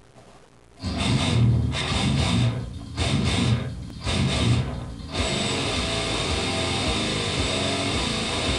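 Heavily distorted electric guitar playing a death metal riff. It starts about a second in as four short stop-start bursts, then runs on as continuous fast playing from about five seconds in.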